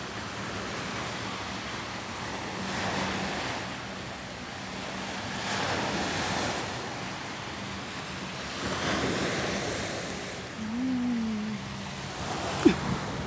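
Small sea waves breaking and washing up a sandy beach, the surf swelling and fading about every three seconds. A sharp click near the end.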